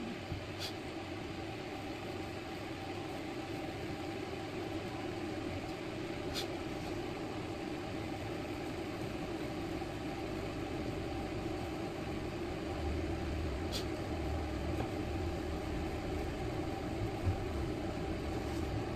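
A steady machine hum, like a running motor or fan, with three faint light ticks spread through it.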